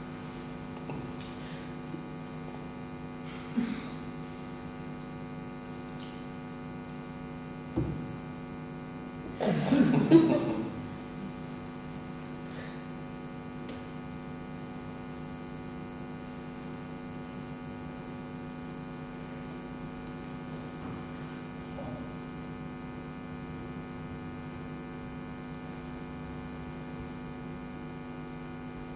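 Steady electrical mains hum from the sound equipment. About ten seconds in there is one brief, louder, pitch-bending sound, and there are a couple of faint knocks before it.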